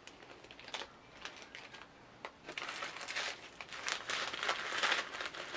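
Clear plastic zip-lock bags crinkling as they are handled: a few scattered rustles at first, then steady, busier crinkling from about two and a half seconds in.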